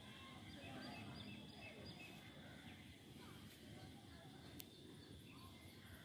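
Faint outdoor ambience with a few short, high bird chirps and one sharp click about two-thirds of the way through.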